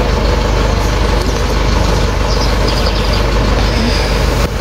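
Delivery truck's engine idling steadily.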